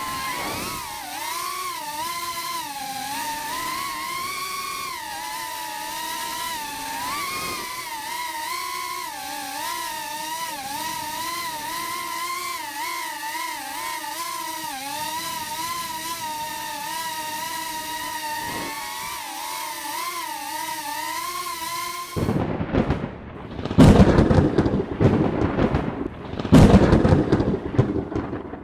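FPV quadcopter's electric motors whining, the pitch wavering up and down with the throttle. About 22 seconds in the whine stops and gives way to loud, rough noise that comes and goes.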